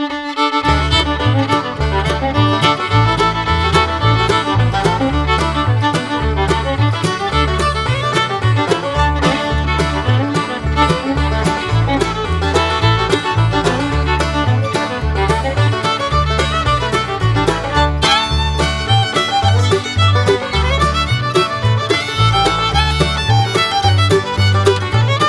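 Loud, fast fiddle-led music over a heavy pulsing bass beat that kicks in about half a second in.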